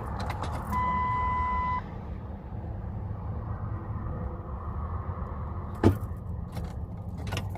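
A car that won't start: a steady beep sounds for about a second, then a sharp click about six seconds in, over a low rumble.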